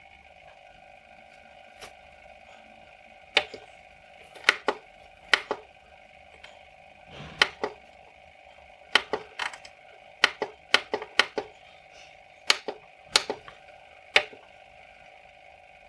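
About twenty sharp clicks, irregular and some in quick pairs, from the controls of a lab bench power supply as its current limit is turned up to drive a 12-volt LED strip light. A faint steady high whine runs beneath.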